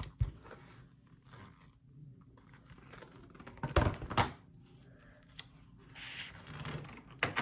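Hardcover picture book being handled on a table: a soft knock as it is lowered, a louder thump about four seconds in, and a short knock near the end.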